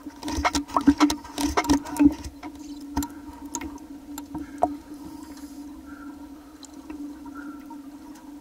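Water sloshing and splashing against a half-submerged camera at the waterline of an ice hole, busiest in the first two seconds and then only occasional, over a steady low hum.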